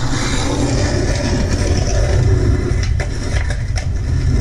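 Skateboard wheels rolling on pavement: a steady low rumble, with a few sharp clacks of the board from about three seconds in.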